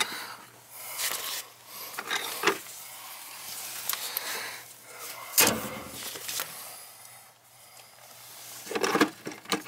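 Hand tools and metal being handled at the base of a cast iron radiator: scattered knocks and clinks with rubbing in between, the sharpest knock about five seconds in and a quick cluster near the end.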